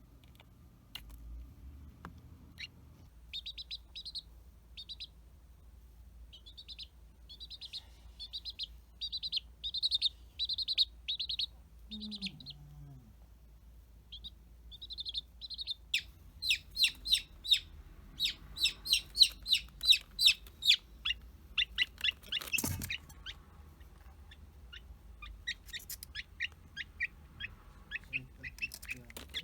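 A newly hatched chick peeping: runs of short, high peeps that come thickest about halfway through, with one sharp click about three-quarters of the way in.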